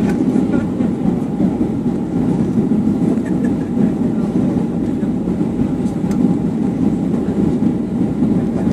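Steady cabin noise inside a Boeing 737-800 on final approach, flaps down: an even rumble of engines and rushing air, with a faint steady whine above it.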